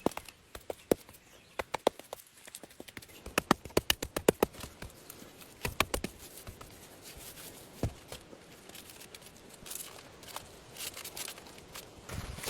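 Irregular sharp knocks and clicks, with a quick run of them about three to four and a half seconds in, then softer scraping and rustling near the end.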